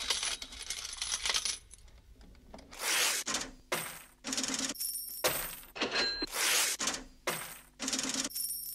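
A run of short metallic clinks and rattles, like coins dropping and jingling, about ten in all at uneven intervals, a few carrying a brief ringing tone.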